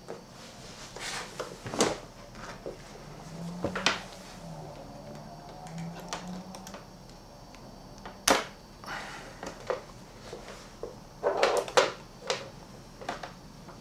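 Bench handling noise around a breadboarded fuzz-pedal circuit: a scattered series of sharp clicks and knocks as cables, jacks and parts are moved. A faint low wavering hum rises for a few seconds in the middle.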